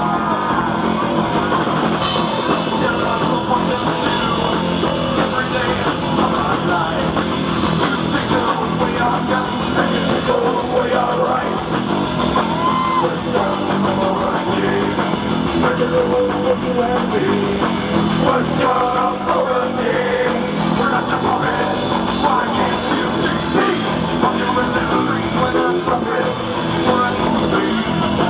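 Live rock band playing loud: electric guitars and a drum kit, with a singer.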